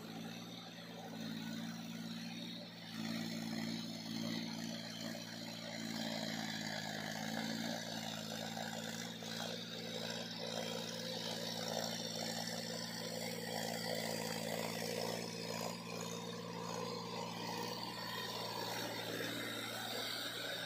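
John Deere 5050D tractor's three-cylinder diesel engine running steadily under load as it drives a rear rotavator through a flooded paddy field, growing louder in the first few seconds.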